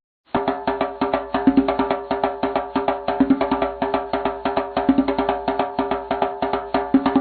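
A short stock music clip: a quick, bouncy tune of rapid percussive notes at a steady beat, starting about a third of a second in.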